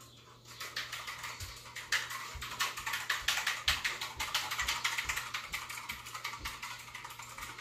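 Fast typing on a computer keyboard: a dense, uneven run of key clicks, with soft low thuds underneath.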